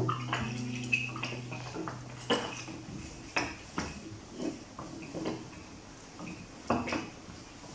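Scattered light knocks and clinks of small hand percussion instruments being handled and tapped, after a low held note rings out and fades over the first couple of seconds.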